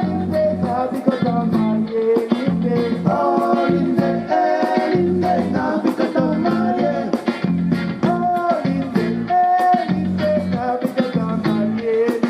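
Music: a song with singing and plucked guitar and bass over a steady beat.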